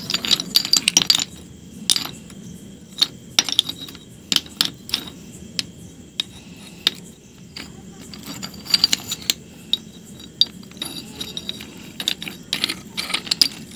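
Flat pieces of pale stone clinking and knocking against one another as a hand shifts and picks through a pile of them, in irregular clusters of sharp clicks.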